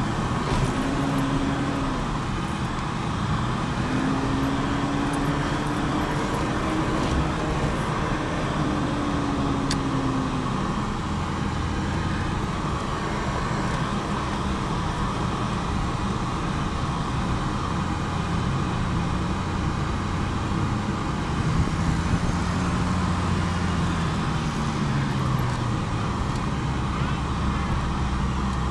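Off-road 4x4's engine heard from inside the cab under load on loose sand, its pitch rising and falling several times as the driver works the throttle, over a steady rumble of drivetrain and tyres.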